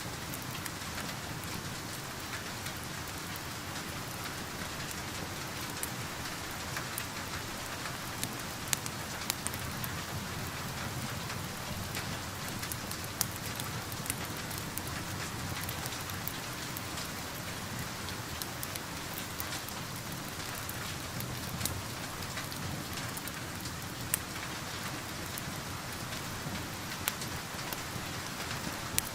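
Steady rain pattering on a surface, with a wood fire crackling: scattered sharp pops stand out a few times over the rain.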